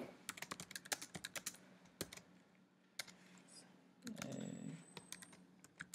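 Typing on a computer keyboard: a quick run of keystrokes in the first two seconds, then scattered single keys. A brief low hum comes about four seconds in.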